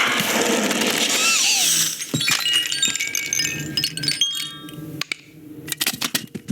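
Animated-film sound effects: a dense noisy rush with gliding tones for about two seconds, then a busy run of small clicks, clinks and short chime-like metallic rings.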